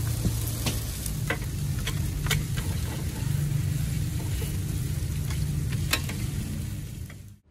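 Ramly burger patties sizzling on a flat steel griddle, with a few sharp clicks and scrapes of a metal spatula and masher on the plate. The sound cuts off suddenly near the end.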